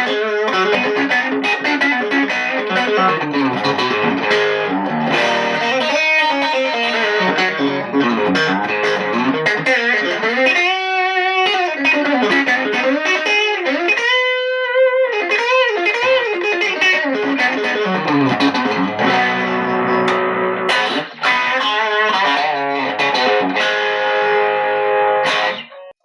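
WestCreek TT-20 solid-body Telecaster-style electric guitar played through an amp: a continuous run of notes and chords, with bent and wavering notes around the middle, stopping abruptly just before the end.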